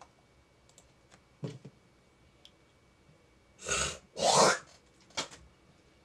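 Two short breathy puffs of air close to the microphone, the second louder, then a brief sharp click about a second later; a faint tap of handling comes before them.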